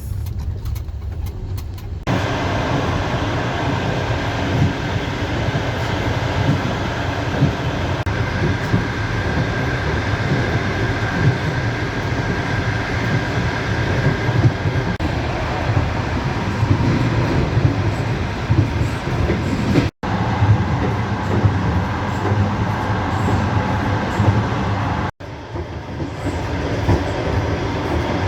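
Passenger train running, heard from inside the carriage: a steady low rumble and clatter of the wheels on the rails, which grows louder about two seconds in and drops out for a split second twice, about twenty and twenty-five seconds in.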